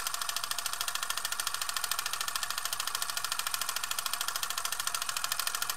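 Film projector running, a rapid, even mechanical clatter of the film advancing through the gate.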